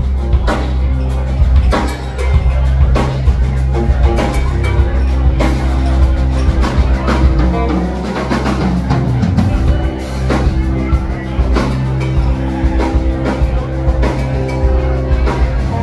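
Live rock band playing through a club PA, heard from the audience: a steady drum-kit beat with a heavy bass line and electric guitar.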